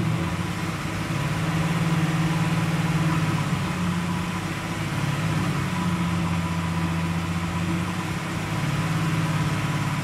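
2017 Chevrolet SS's 6.2-litre LS3 V8 held at a steady 2,000 rpm, heard at the left rear tailpipe through the stock bimodal exhaust with its valves open in Sport mode.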